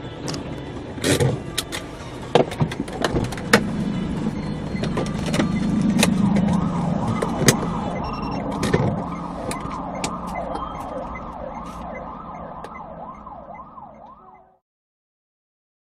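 A car rolling over on the road ahead: a string of sharp knocks and clatter over a steady vehicle drone, then a siren-like wail sweeping rapidly up and down from about seven seconds in. The sound cuts off abruptly near the end.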